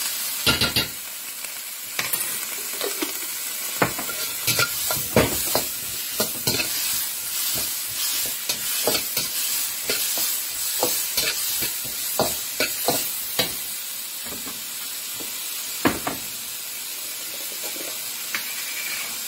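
Sliced onions and garlic sizzling in a hot wok while a metal spatula stirs them, with irregular scrapes and clicks of the spatula against the pan over a steady sizzle.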